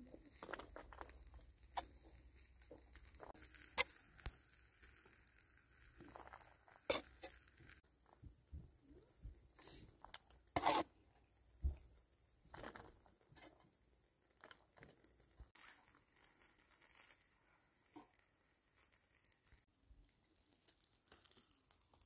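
Faint, scattered taps, clicks and rustling, with a light hiss that comes and goes.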